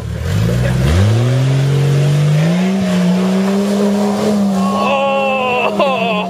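Lifted Jeep Cherokee's engine revving hard, climbing steeply in the first couple of seconds and then held at high revs as it ploughs through a mud pit. Near the end a higher, wavering whine joins in, with the wheels spinning and throwing mud.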